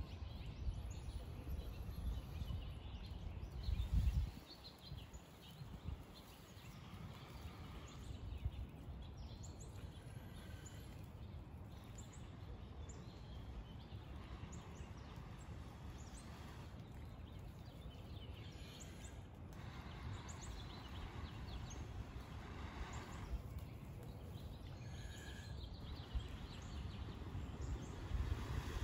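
Repeated long breaths blown into a smouldering tinder bundle to coax a flint-and-steel ember into flame. Birds chirp in the background.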